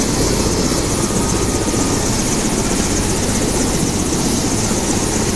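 Helicopter running on the ground close by, its main rotor turning, giving a steady, loud rush of rotor chop and engine noise.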